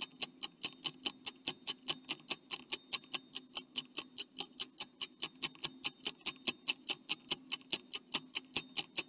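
Clock-ticking sound effect of a quiz countdown timer: fast, even, sharp ticks, about five a second, over a faint low steady hum.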